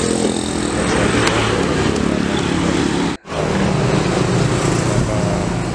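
Pickup truck driving: steady engine running under road and rushing noise, heard from over the loaded cargo bed. The sound cuts out for an instant a little past halfway.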